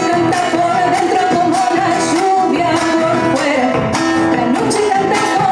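Argentine folk song performed live: a woman singing held, wavering notes over strummed acoustic guitar, with drum and cymbal strokes keeping the beat.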